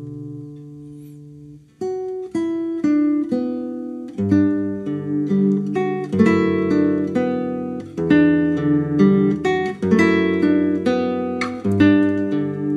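Solo nylon-string classical guitar, a Kim Sang Gil instrument, played fingerstyle. A held chord rings and fades into a brief pause, then plucked melody notes over bass notes resume about two seconds in and grow busier.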